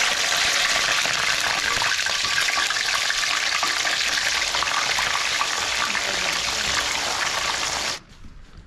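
Fish slices frying in hot oil in a wok: a loud, steady sizzle with fine crackling. It cuts off abruptly about eight seconds in.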